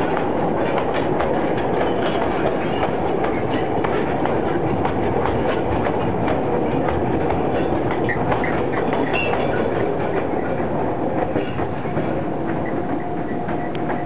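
A long string of loaded narrow-gauge sugarcane wagons rolls past, their steel wheels clicking and clanking over the rail joints, with a few short squeaks. The noise eases a little near the end as the last wagon goes by.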